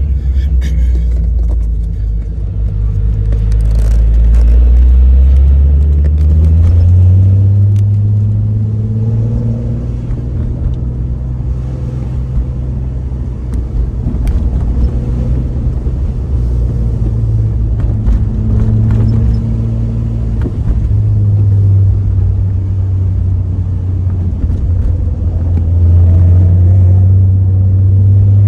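Deep, steady engine and exhaust rumble of a Nissan GT-R and the following car driving slowly, heard from inside the following car's cabin. The pitch rises about seven seconds in, drops back a little after twenty seconds, and rises again near the end as the throttle changes.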